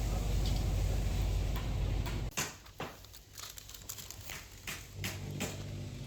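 A forklift engine running with a steady low rumble that cuts off abruptly about two seconds in. A few sharp knocks follow, and a weaker low engine hum returns near the end.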